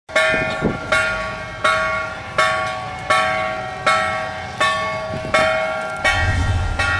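A bell struck in a steady rhythm, about once every three-quarters of a second, each stroke ringing out and fading before the next. Deeper notes join in near the end.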